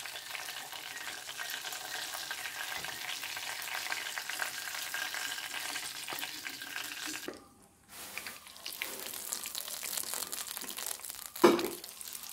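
Marinated chicken pieces frying in hot sunflower oil over medium heat: a steady sizzle with fine crackling. It breaks off for a moment a little past halfway, and a brief louder noise comes near the end.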